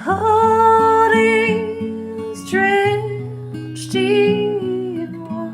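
Background song: a slow ballad with a few long held sung notes over plucked acoustic guitar.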